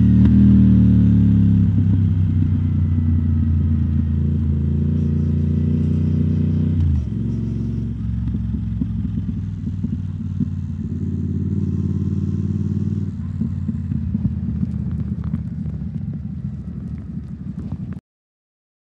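2021 Triumph Speed Twin 1200's parallel-twin engine running through British Customs Turnout exhaust tips while riding. The engine note falls steadily as the bike slows, drops sharply about seven seconds in, then holds at a lower steady pitch with a few small changes. The sound cuts off suddenly near the end.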